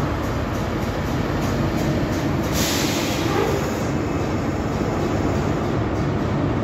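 Class 43 HST diesel power car idling at a station platform: a steady engine hum and rumble, with a brief hiss about two and a half seconds in.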